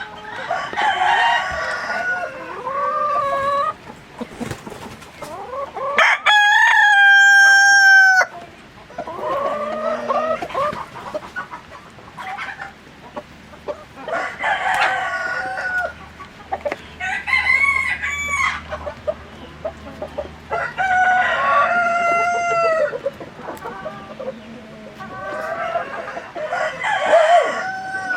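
Chickens clucking and calling throughout, with a rooster crowing once, long and loud, about six seconds in.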